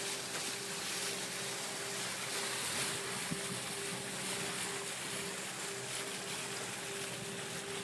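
Sailing catamaran under way downwind: a steady rush of water along the hulls mixed with wind, with a faint steady hum underneath.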